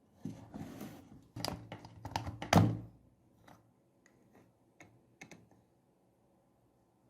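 Rustling with a quick run of clicks and knocks, the loudest about two and a half seconds in, then a few lighter scattered clicks.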